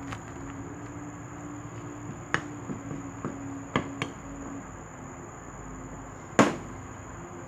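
Kitchen utensils knocking and clinking against a bowl or the counter: a few sharp knocks in the middle and one louder knock near the end, over a steady low hum.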